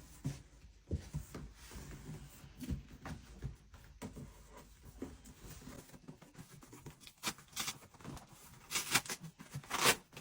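Cardboard box and packaging being handled during unboxing: soft knocks and bumps, then several rustling swishes in the last few seconds.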